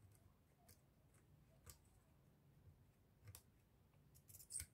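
Near silence broken by a few faint, sharp clicks, a small cluster of them near the end: a screwdriver tip and soldering iron tapping against the vacuum motor's brush-board terminals while a wire is desoldered.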